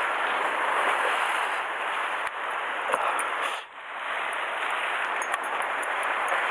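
Surf washing against a rocky shore: a steady rushing hiss that dips briefly about halfway through.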